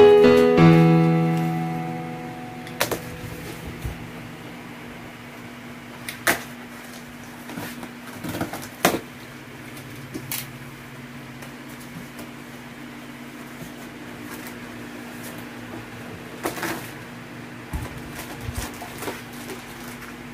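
Piano music fading out over the first two seconds, then a cardboard box being opened by hand: scattered rustles, scrapes and crackles as the taped flaps are pulled apart, over a steady low hum.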